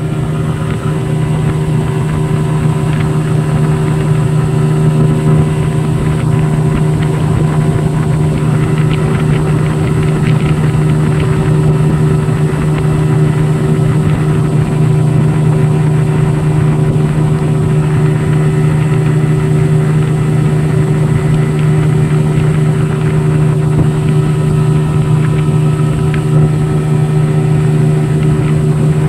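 Mercury 15 HP outboard motor running at a steady part throttle under way, an even, unchanging note with the rush of the wake. The sound is smooth, which the owner takes for an engine in normal condition.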